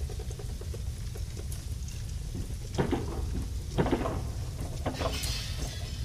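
A building fire: a steady low roar of flames, with sharp crackles and three or four louder cracks in the second half.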